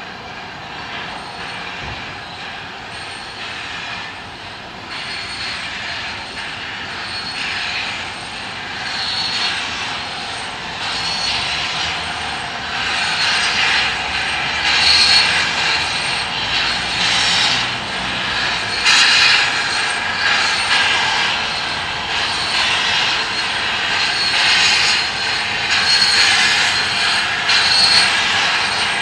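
BR Standard Class 5 steam locomotive 73156 moving off slowly with its cylinder drain cocks open: a rhythmic hiss of steam with each piston stroke, about one a second, growing louder as it approaches.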